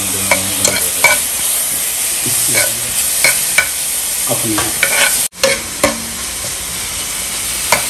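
Garlic, green and red chillies and cumin seeds sizzling in hot oil in a wok as the tempering for a mushroom masala, with a steady hiss. A steel ladle stirs them, clinking sharply against the pan a dozen or so times.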